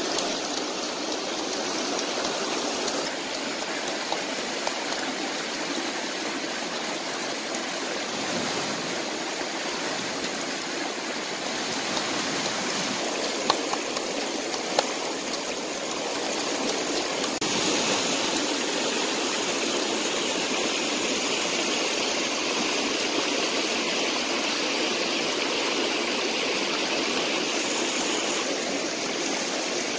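A rocky stream running steadily, a constant rush of water over stones. About halfway through come two sharp knocks from a pestle striking a mortar, and a little later the hiss turns brighter for a while.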